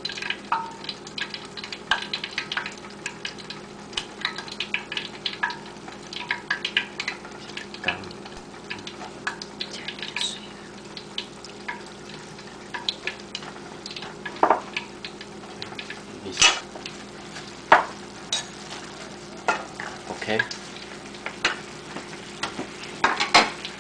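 Wooden spoon stirring cornstarch into a simmering sauce in a stainless-steel skillet, with frequent small knocks and scrapes against the pan and the sauce sizzling. A few louder knocks come in the second half.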